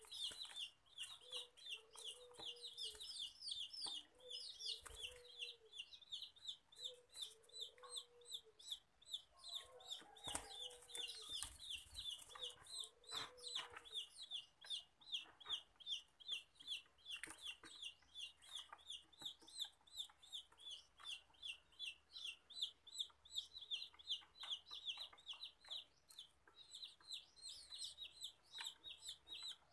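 Zebra dove squab cheeping non-stop, a quick train of short high-pitched cheeps at about three a second: the begging calls of a chick being hand-fed. Lower short calls come about every second and a half in the first half, with light handling clicks.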